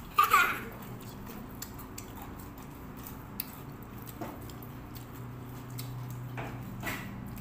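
Meal-table sounds: a short loud burst right at the start, then faint clicks of plates or cutlery over a steady low hum.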